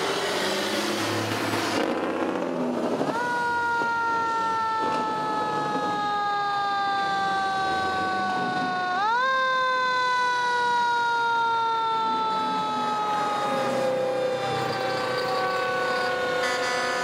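Fire truck siren wailing: the pitch jumps up quickly, then sinks slowly over several seconds, twice. Before the siren starts, a passing semi truck makes a loud rushing noise.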